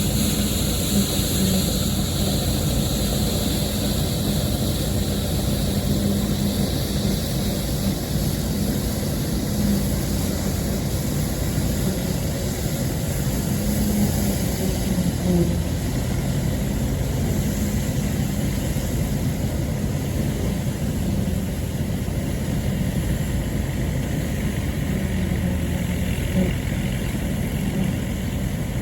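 Allis-Chalmers WD45 tractor engine running steadily, with the rushing whir of an All-Crop 72 pull-type combine harvesting wheat.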